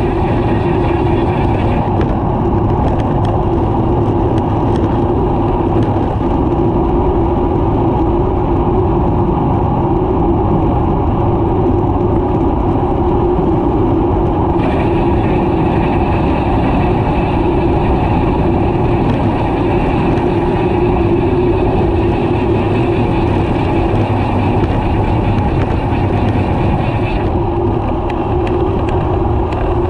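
Steady rush of wind and road noise on a bicycle-mounted camera while cycling along a busy multi-lane road, with car traffic running alongside.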